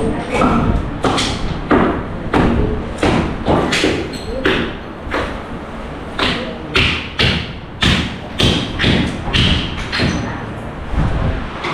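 Repeated heavy thumps and knocks of demolition work, irregular blows about one to two a second, as a room is being gutted.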